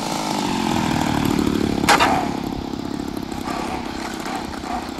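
Radio-controlled model airplane's engine throttled down, its pitch falling as the plane comes in to land, with a sharp knock about two seconds in, then running lower as it rolls along the runway.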